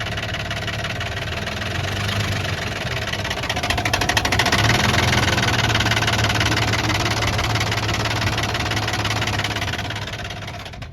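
Infiniti G35's 3.5-litre V6 running with a rapid knocking from a failing rod bearing (rod knock). The engine is revved up a few seconds in, held there, then eases off near the end.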